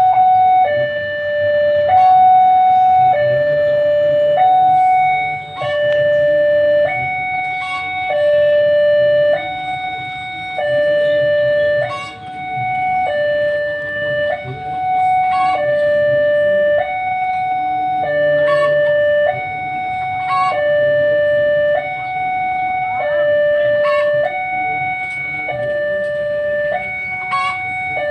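Railway level-crossing warning alarm sounding: an electronic two-tone signal alternating steadily between a higher and a lower note, each held a little over a second, warning of an approaching train.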